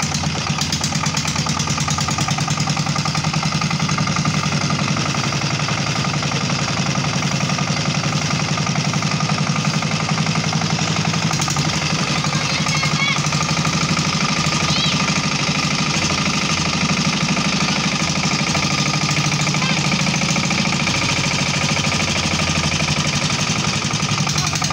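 Peter 16 hp stationary diesel engine running steadily under load with a fast, even knocking beat, belt-driving a wood saw.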